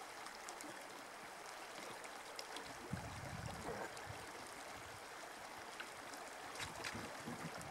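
Shallow river current flowing over a riffle, a steady soft rush of moving water, with a brief low rumble about three seconds in.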